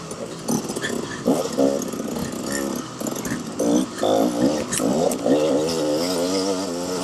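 KTM 300 XC-W two-stroke dirt bike engine revving up and down in quick surges as the throttle is opened and closed through tight trail.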